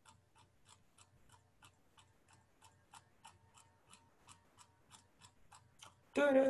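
Computer mouse scroll wheel clicking notch by notch at a steady rate of about three clicks a second as the document scrolls. Just before the end a much louder held voice sound starts.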